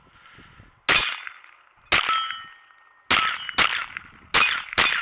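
Glock 44 .22 LR pistol firing six shots at an uneven pace, each shot followed by a short metallic ring.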